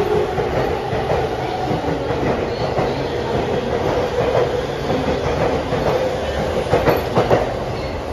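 JR East E231-500 series commuter train pulling out of the station and running past the platform, a steady rumble of wheels and running gear. A few sharp clacks of wheels over rail joints come near the end as the last car goes by.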